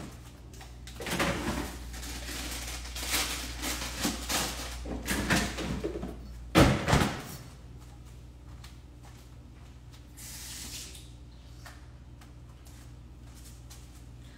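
Someone rummaging through kitchen cupboards or drawers: several seconds of rustling and clattering, with a sharp knock about six and a half seconds in, then quieter.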